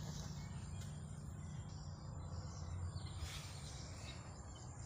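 Faint outdoor ambience: a steady high-pitched insect chirring over a low steady rumble, with a brief soft rustle a little over three seconds in.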